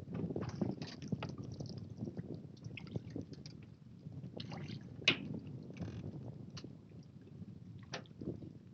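Water lapping and sloshing, with scattered small knocks and clicks.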